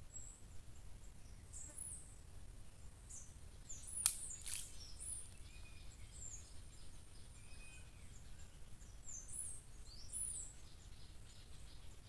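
Faint forest birdsong: short, high-pitched chirps repeated every second or so. A single sharp click comes about four seconds in, over a steady low rumble.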